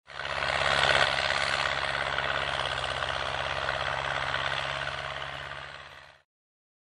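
Zetor tractor's diesel engine running steadily while pulling a plough. The sound fades in at the start and fades out about six seconds in.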